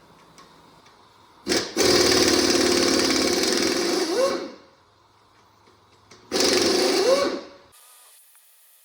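A power wrench run twice on the 427 big-block Chevy's fasteners during teardown: a steady run of about three seconds, then a shorter one of about a second. Each ends in a rising whine as the tool spins up.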